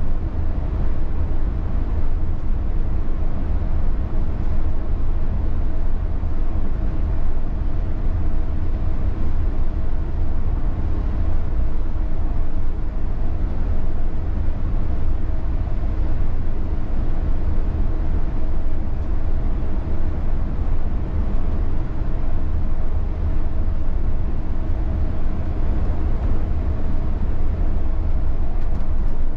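MAN Lion's Coach diesel coach driving at a steady speed: a constant low rumble of engine and road with a faint steady hum, unchanging throughout.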